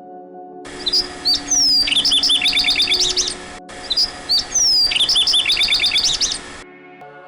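A songbird's song: a phrase of high chirps, a falling whistle and rapid trills, heard twice in a row in exactly the same form, over a soft steady low tone.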